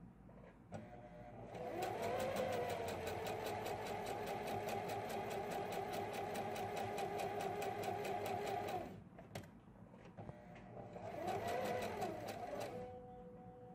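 Electric sewing machine stitching through thin fabric. It speeds up and runs steadily for about seven seconds with a rapid even needle clatter, stops, then runs again briefly near the end, speeding up and slowing down.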